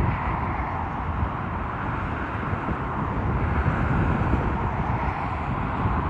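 Jet airliner engines on landing approach, a steady rushing noise with a deep rumble underneath.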